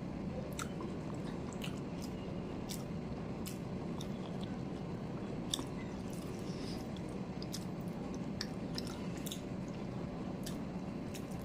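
Close-miked mouth sounds of eating rice and curry by hand: chewing with wet smacks and many short, irregular clicks.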